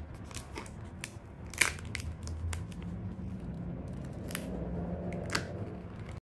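Thin plastic protective film crinkling and crackling as it is peeled off a new phone, with about five sharp crackles, the loudest about one and a half seconds in.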